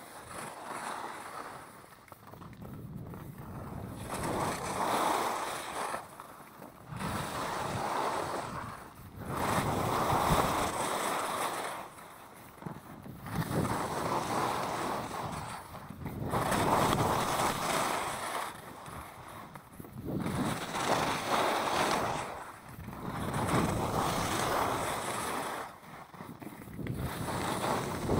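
Skis carving turns down a snow piste: the edges scrape and hiss across the snow in swells that rise and fall about every two to three seconds, one swell per turn, with wind rushing over the microphone.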